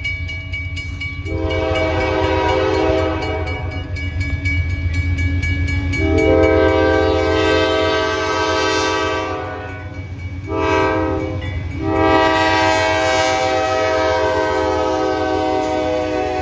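Diesel freight locomotive's multi-chime air horn sounding the grade-crossing signal as it approaches: two long blasts, a short one, then a long one held on. A low diesel engine rumble runs underneath.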